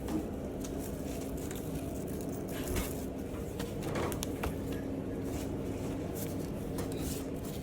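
Steady low hum of a room, with scattered soft taps and scuffles from playing kittens.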